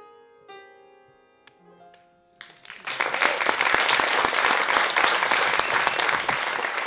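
The last few soft, lingering piano notes of a ballad ending, then an audience breaks into applause about two and a half seconds in, loud and steady through the rest.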